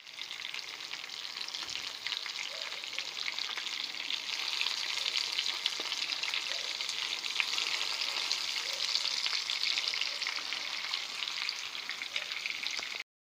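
Breaded chicken pieces shallow-frying in hot oil in a pan: a steady sizzle scattered with small crackling pops. It cuts off suddenly near the end.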